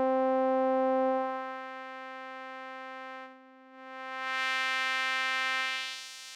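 Sawtooth synth note from Serum 2 held steadily through a low-pass and a high-pass filter in series while the cutoffs are swept. The low-pass closes first, dulling the tone until it nearly fades out about three and a half seconds in. The top end then comes back bright, and the high-pass thins out the low end near the end.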